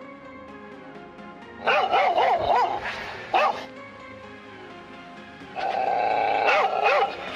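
Recorded dog barks played back through the small speaker of a homemade motion-triggered dog-bark alarm, set off by its PIR sensor. There is a run of barks about two seconds in, a single bark just after three seconds, and a longer run of barks from about five and a half seconds.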